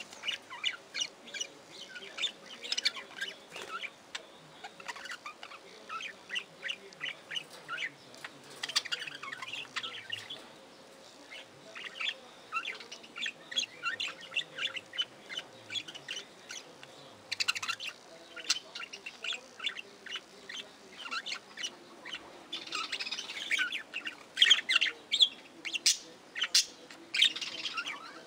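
A flock of budgerigars chattering: a continuous stream of short, quick chirps and warbles from several birds at once, with the loudest bursts near the end.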